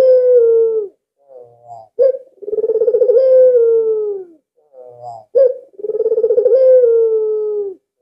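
White Barbary dove (puter) cooing repeatedly. Each phrase has a few short soft notes and a sharp catch, then a rolling coo about two seconds long that drops in pitch at the end. The phrase repeats about every three and a half seconds, twice in full, with the tail of an earlier coo at the start.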